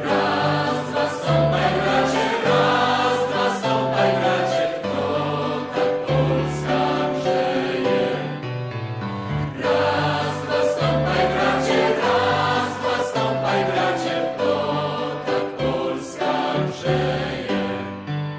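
Background music: a choir singing held chords over a low, slowly changing bass line.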